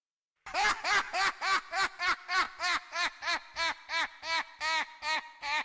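A sampled laugh in the remix's intro. After about half a second of silence, a single 'ha' repeats over a dozen times in an even rhythm, a little over two a second, each rising and falling in pitch.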